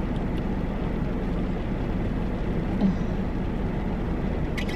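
Steady low rumble and hiss inside a car.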